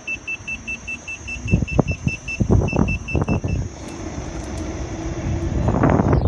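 KingSong electric unicycle's warning alarm beeping rapidly, about five short high beeps a second, with a brief break and then stopping about three and a half seconds in; it is the beeping a wheel gives when ridden fast. Gusts of wind noise and low thumps on the microphone come in partway through and grow toward the end.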